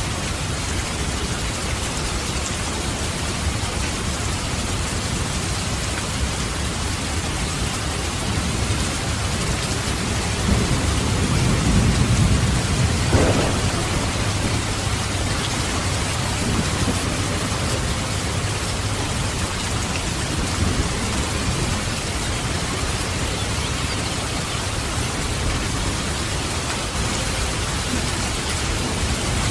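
Steady heavy rain with a roll of thunder that swells in the middle, with a sharp crack near its peak.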